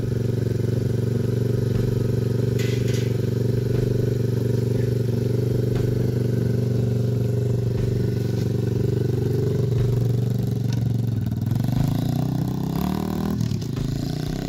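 Single-cylinder 125cc four-stroke engine of a TaoTao DB17 pit bike idling steadily. About two thirds of the way in, the revs rise and waver as the bike pulls away.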